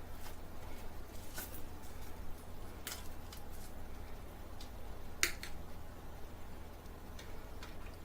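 Scattered small clicks and taps, about eight in all, the sharpest about five seconds in, over a steady low hum.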